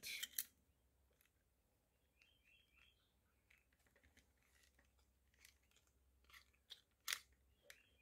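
Near silence with faint handling noises: cables rustling and a few light clicks as the bench power supply's metal case and its adapter cables are handled.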